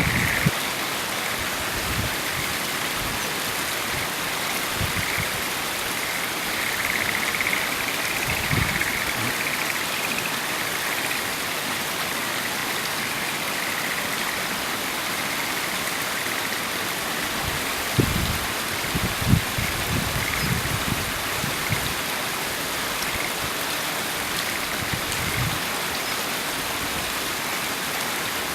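River water flowing, a steady even rush, with a few low thumps around two-thirds of the way in.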